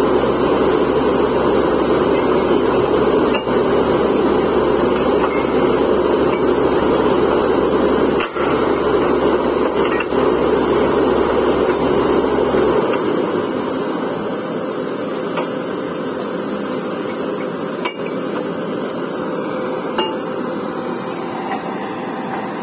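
Truck-mounted borewell drilling rig drilling, its air-driven down-the-hole hammer making a dense, steady hammering rattle over the rig's engine and compressor. About halfway through, the deep rumble underneath drops out and the sound gets a little quieter.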